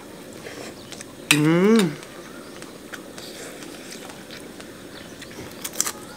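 A man's short wordless vocal exclamation about a second in, its pitch rising then falling, as he eats very spicy noodle salad; a few light clicks near the end over a steady faint background hiss.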